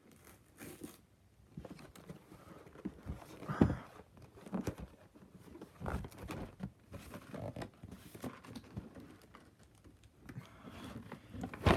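Hands working at a cardboard game box to get it open: irregular scrapes, taps and crinkles of cardboard and packaging, with a louder knock about three and a half seconds in and again about six seconds in.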